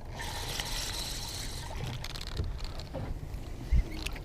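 Water splashing and washing for the first couple of seconds, over a steady low rumble of moving water, with a single thump near the end.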